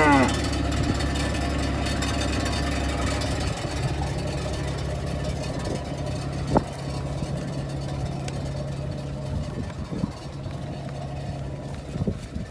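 Steady low hum of an idling engine, with the end of a cow's moo right at the start and a single sharp click about six and a half seconds in.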